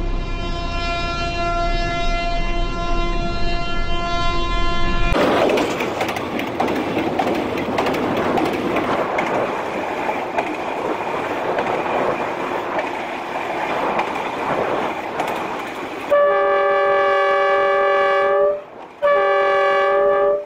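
A locomotive horn sounds steadily for about five seconds. The horn gives way to the running noise of a train heard from the cab, rumbling along the rails. Near the end the horn sounds twice more, loudly, one long blast and then a shorter one.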